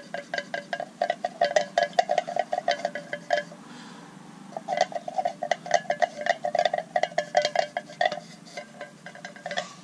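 A wooden chopstick stirring paint in an empty tin can, clinking rapidly against the metal sides so the tin rings, with a short pause about halfway through.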